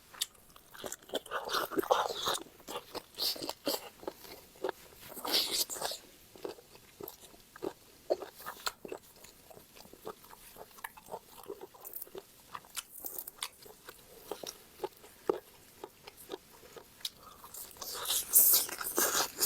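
Close-miked eating sounds: a person biting and chewing squid with fresh raw vegetables. The crunches and wet chewing come at irregular intervals, with louder bites near the start, about five seconds in and near the end.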